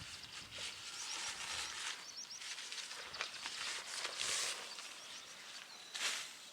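Rustling and handling noises in irregular bursts, with a few light clicks, typical of camping gear being handled and set up. Faint bird chirps can be heard behind them.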